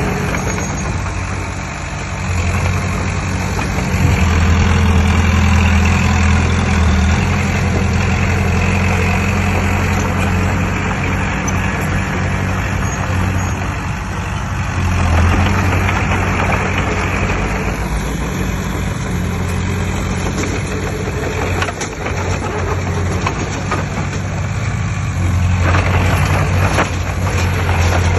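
Heavy earthmoving machine's diesel engine running steadily, with a deep low drone that grows louder three times as the engine comes under load.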